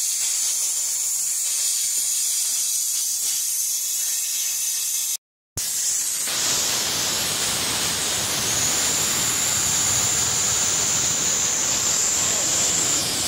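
Compressed air hissing steadily out of the Hitachi EC2510E wheelbarrow compressor's tank through its open drain petcock: the leak first taken for a hole in the tank. After a brief break about five seconds in, the hiss returns louder and fuller, with a steady high whistle in it from about eight seconds in.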